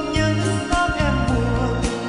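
A man singing into a handheld microphone over a backing track with a steady beat and bass.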